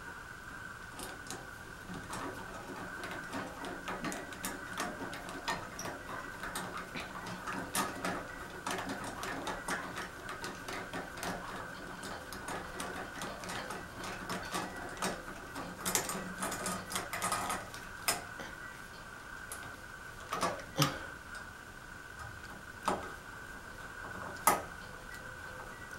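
Fan parts and hand tools being handled during assembly: rapid, irregular small clicks and light tapping over a steady faint high hum, thinning out about two-thirds in to a few sharper single knocks.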